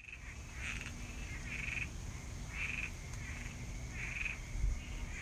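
Frogs calling at night, a short croak repeating about once a second, over a steady high-pitched drone and a low rumble.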